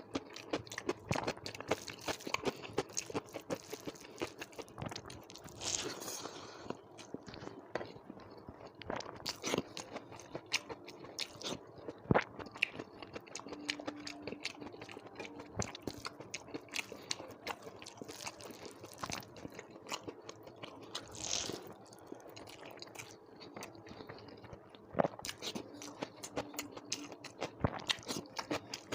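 A person chewing and crunching food close to the microphone: a steady run of small crunches and wet mouth clicks, several a second.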